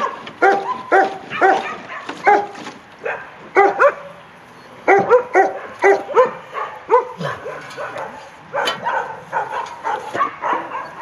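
A dog yipping over and over in short, high calls, about two to three a second, with a brief pause around four seconds in before a quicker, more ragged run of yips.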